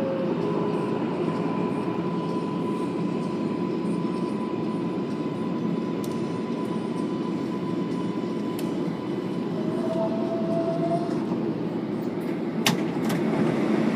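R188 subway train running through a tunnel, heard from inside the car: a steady rumble of wheels on rail. A faint, steady whine carries through the first half, a shorter, lower whine follows about ten seconds in, and there is a sharp click near the end.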